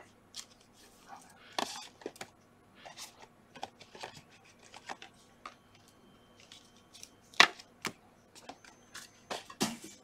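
Trading cards being flipped and slid through the hands one after another: a string of short papery clicks and snaps, the sharpest about seven and a half seconds in.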